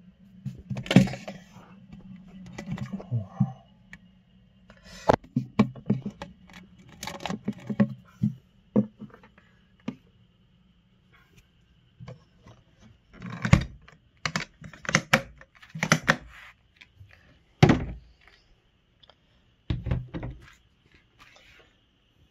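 Irregular knocks and clunks of hard plastic as a cooler and the ice container and ice pack inside it are handled, coming in several clusters, with a low hum under the first half.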